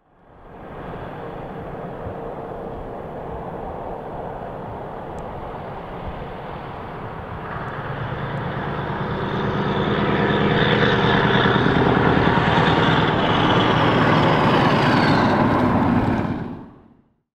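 Scania V8 truck engine pulling along the road: steady at first, growing louder from about eight seconds in as the truck comes closer, loudest for the next several seconds, then fading out quickly near the end.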